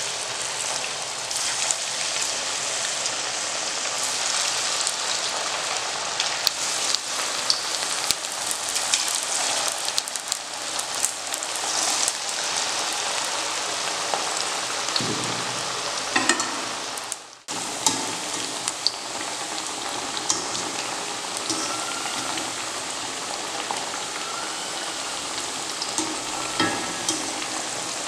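Rice flour vadas deep-frying in hot oil in a steel kadai: a steady crackling sizzle, thick with small pops. It cuts out briefly about two-thirds of the way through, and a few light knocks come through near the end.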